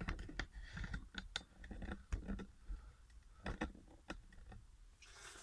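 Faint, irregular light clicks, knocks and rustles of handling: a paper instruction sheet being held and moved while someone shifts about.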